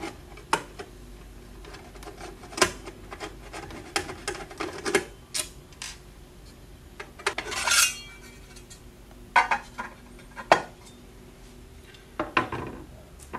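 Screwdriver and small screws clicking and clinking against a sheet-aluminium cover and a countertop while the cover is unscrewed and taken off, with a longer metal scrape just before eight seconds in.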